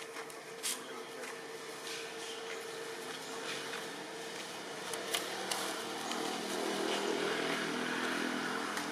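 Steady outdoor background hum with a few faint sharp clicks; over the last few seconds a low motor drone, like a distant engine, comes up and grows a little louder.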